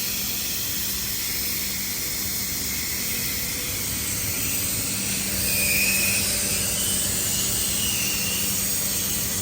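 Hot-air PVC welding machine running: a steady hiss of blown air over a low hum, with a faint high whine for a few seconds past the middle.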